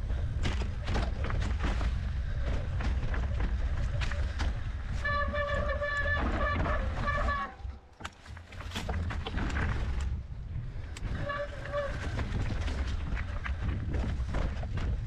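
Mountain bike rattling and clattering over rocky trail, with wind rumbling on the microphone. A steady squeal, typical of disc brakes under braking, comes in about five seconds in for a couple of seconds and again briefly a few seconds later.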